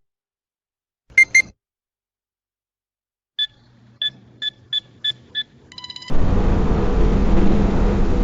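Electronic beeps: a quick double beep, then a run of six short beeps over a faint low hum, and a fast burst of beeps. This is followed by a loud, grainy noise lasting about three seconds, the loudest sound here.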